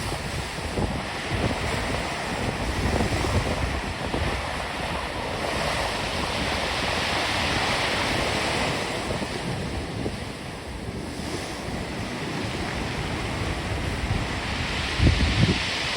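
Storm surf breaking and washing in, swelling and easing in slow surges, with wind buffeting the microphone, hardest near the end.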